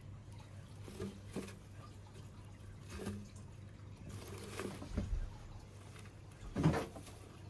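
Scattered soft knocks and taps with small wet sounds as wooden feeding tongs and a water snake move against a plastic enclosure and its water dish, the loudest knock near the end, over a faint steady low hum.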